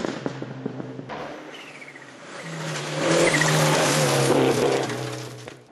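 Turbocharged WRC rally car engine at high revs, dying away after a pass. It grows loud again about two and a half seconds in, then fades out.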